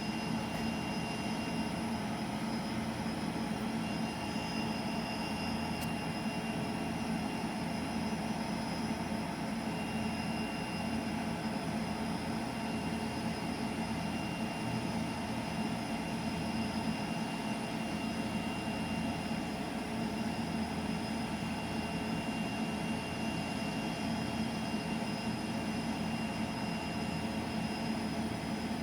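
Union Pacific train rolling steadily past: a constant rumble with a faint, steady high whine over it.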